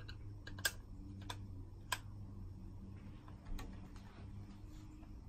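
A few sharp, irregularly spaced clicks as a plastic bullet security camera and a screwdriver are handled at the camera's mount, over a steady low electrical hum.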